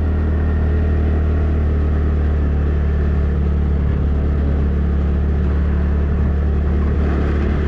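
Motorcycle being ridden at a steady speed on the road: a steady low engine and road rumble with no change in pace.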